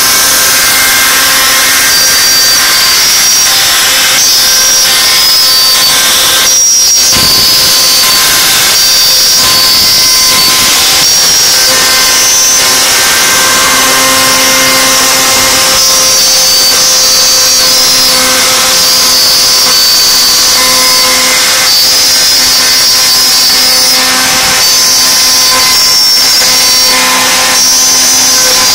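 CNC router spindle running and cutting wood, a loud, steady high-pitched whine over a constant rush of cutting noise, with a brief break about seven seconds in.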